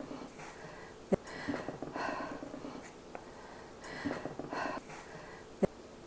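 Chef's knife cutting through cooked chicken breast and striking a plastic cutting board, two sharp clicks about four seconds apart. Slow breathing is heard between the cuts.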